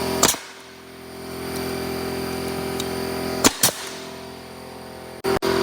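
Pneumatic framing nailer firing nails into pallet boards: one shot about a quarter second in, then two in quick succession about three and a half seconds in. An air compressor hums steadily underneath.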